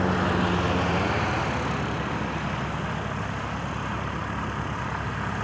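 Aircraft engine noise: a steady rushing drone with a low hum that drops away about a second in, the whole sound slowly fading.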